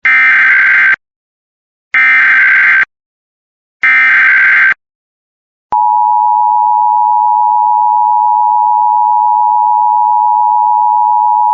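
Emergency Alert System SAME header: three bursts of buzzy digital data tones, each about a second long and about a second apart. About six seconds in, the steady two-tone EAS attention signal starts and holds.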